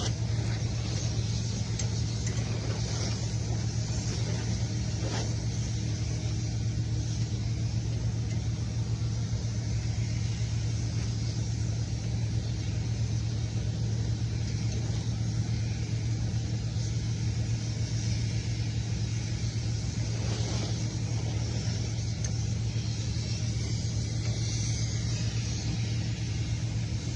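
Steady low-pitched drone of running machinery, even and unchanging, with a faint haze of higher noise over it.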